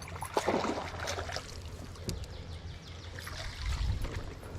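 Water splashing and dribbling, mostly in the first second and a half, as a just-hooked fish is brought up out of the water, followed by a low rumble of handling noise near the end.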